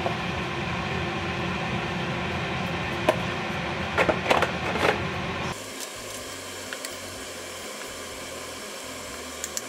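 Steady rushing kitchen noise with a few knocks and clatters about four to five seconds in. About five and a half seconds in it drops suddenly to a quieter hiss, with light taps of a wooden spatula stirring curry paste in a steel wok.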